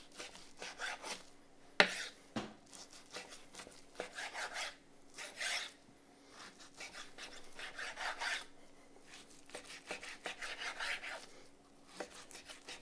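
Kitchen knife slicing through thin raw beef sirloin tip slices on a wooden cutting board, in repeated groups of short rasping back-and-forth strokes, with one sharp knock on the board just under two seconds in.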